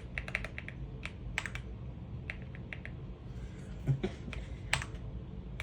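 AULA F75 mechanical keyboard keys being pressed, clicking in short quick clusters of two to four presses, with a low knock about four seconds in.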